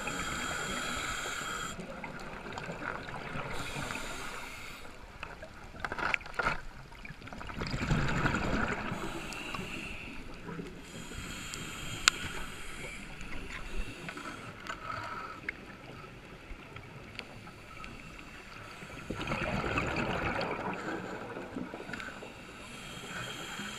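Scuba regulator breathing heard underwater through the camera: hissing inhales alternate with louder rushes of exhaled bubbles, slowly, about two breaths in all. One sharp click comes midway.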